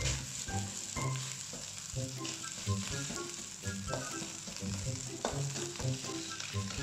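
Rice and egg sizzling in a hot, oiled nonstick wok as they are stir-fried with a spatula, which scrapes and knocks against the pan now and then.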